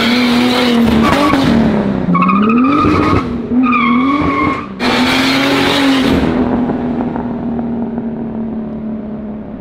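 Turbocharged, E30-engine-swapped 1972 BMW 2002 accelerating hard. The engine note rises and falls with brief breaks, and the rear tyres squeal twice as they spin. The steady engine note then fades as the car pulls away.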